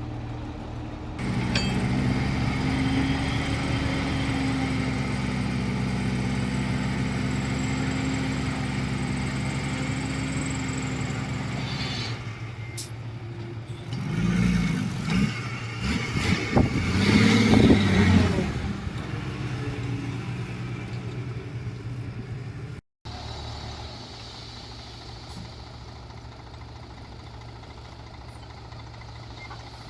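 Heavy diesel earthmoving machinery running steadily under load, growing louder about a second in. Around the middle comes a louder, rougher stretch of rumbling and clatter as the engine pitch shifts. After a brief break the engine runs on more quietly and steadily.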